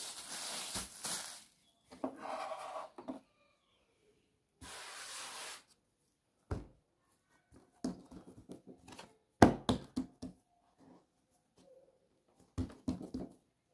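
Hands working a piece of dough on a floured wooden board: soft rubbing and rustling, then scattered knocks of dough and hands on the wood, the sharpest about nine and a half seconds in.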